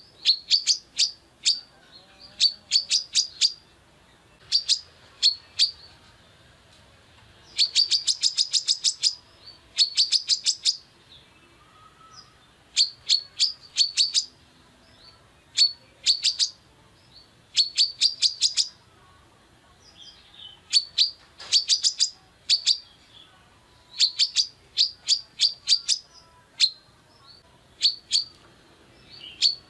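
A female brown-throated sunbird (kolibri kelapa) calling in rapid runs of sharp, high chirps, several notes to a run, the runs repeating every second or so.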